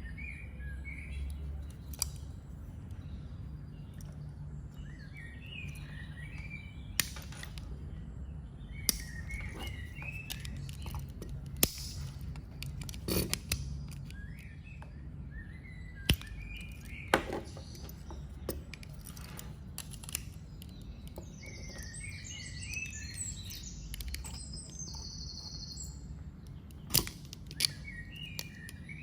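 Sharp clicks every few seconds, irregularly spaced, from the blades and tools of a Victorinox Swiss Champ multi-tool being opened and snapped shut, with birds chirping in the background and a low steady hum.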